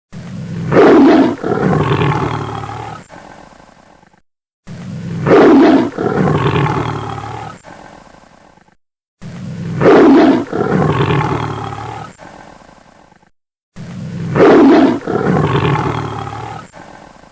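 Tiger roaring, the same recording played four times about every four and a half seconds. Each roar starts loud and trails off over about four seconds, with a short silence between.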